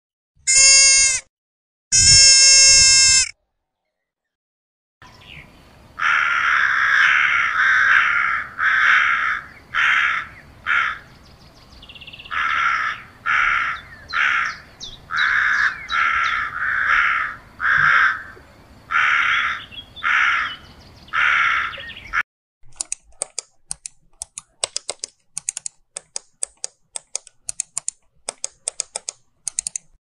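Two short, high, bleat-like calls from a roe deer. Then a hawk gives a long run of harsh, evenly repeated cries, about one a second. Near the end comes a rapid spell of faint clicking.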